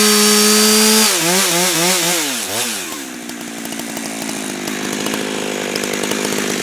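Chainsaw ripping a log lengthwise for boards, running at steady full throttle. About a second in the revs wobble up and down and fall away, settling to a lower, steady running by about three seconds in.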